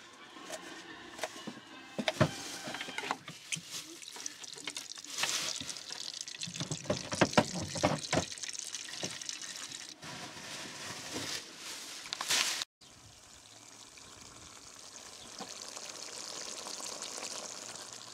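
Wine pouring from the push-tap of a bag-in-box into a small glass, with sharp clicks and knocks from the tap and glass being handled. The sound breaks off suddenly about two-thirds of the way through, and a steady hiss follows.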